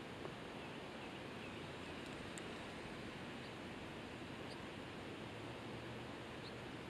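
Quiet outdoor ambience: a steady low hiss with a few faint, short, high-pitched bird chirps scattered through it.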